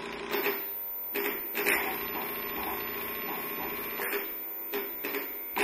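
Steady buzzy electronic drone from surface transducers vibrating shallow dishes of water, with several short crackling bursts scattered through it.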